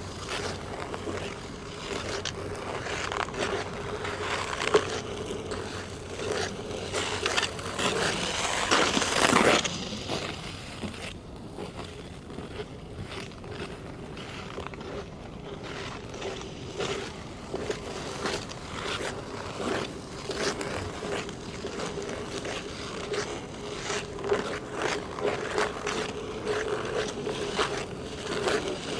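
Ice skate blades on hard natural black ice: rhythmic scraping and cutting strokes. Near a third of the way in, one long scrape is louder than the rest. A quieter stretch follows, and a faint steady hum runs underneath throughout.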